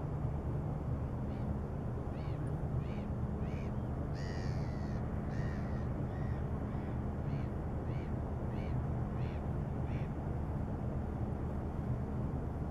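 Tugboat engine droning low and steady across the water. Over it, a bird gives a run of about a dozen short calls, roughly one and a half a second, stopping near the end.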